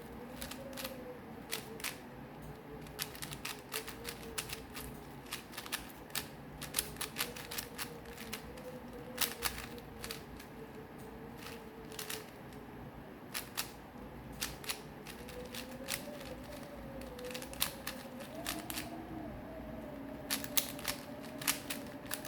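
Plastic 4x4 Rubik's Cube being turned quickly by hand: irregular runs of sharp clicks as its layers snap through turns. A faint wavering hum runs underneath.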